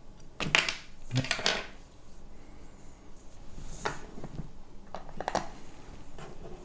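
Small metal parts and a hand tool being handled, clicking and clattering in short bursts: two quick clusters in the first second and a half, then single clicks about four and five seconds in. These are the goggles' hinge hardware (spring, washer, spacer, bolt) being fitted back on.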